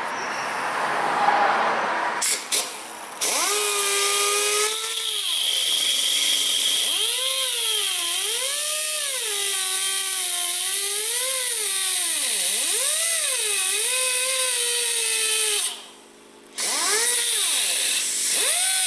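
Small handheld cutoff wheel grinding through the protruding end of a hardened steel helicoil thread insert to trim it flush. The tool gives a couple of short bursts, then runs steadily with a hiss and a whine that rises and falls as the wheel bites. It stops briefly near the end and starts again.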